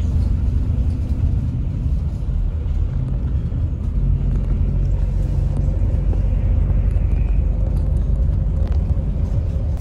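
Hino RM 280 bus driving along the road, heard from inside the passenger cabin: a steady low rumble of engine and road noise.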